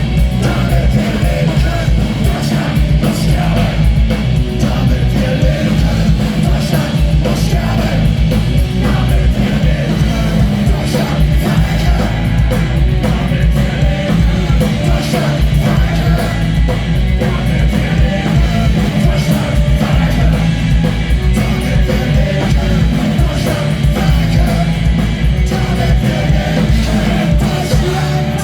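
Punk rock band playing live: loud distorted electric guitars, bass and driving drums, with shouted vocals.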